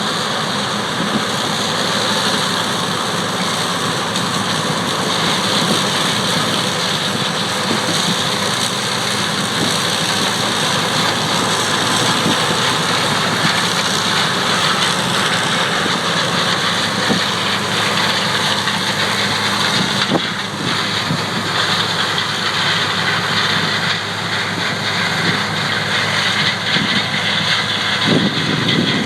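Farm machinery engines running steadily during a silage corn harvest.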